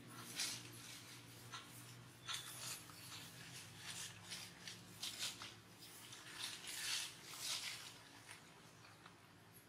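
Faint, scratchy rustling of dry leaves in short, irregular bursts, over a low steady hum.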